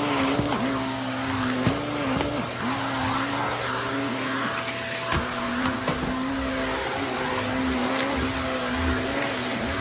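Vacuum cleaner running and sucking up sand-wall debris. Its motor note dips and recovers every second or two over a steady rush of air. The cleaner is packed full of sand, which the owner says changed its sound.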